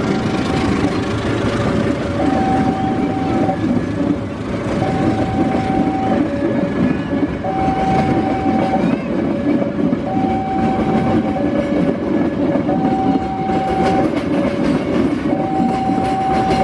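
A train passing with steady rumble and clatter of wheels on rail. Over it, a level-crossing warning alarm alternates between a lower and a higher tone, each held about a second and a quarter.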